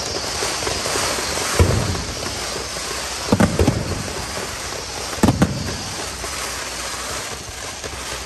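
Fireworks going off: a continuous crackle, with sharp, deep booms about one and a half seconds in, a quick pair at about three and a half seconds and another pair just past five seconds.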